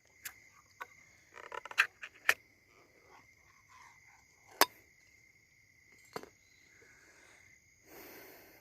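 Crickets chirping in a steady high trill, with a handful of sharp, separate clicks and knocks and a brief rustle near the end.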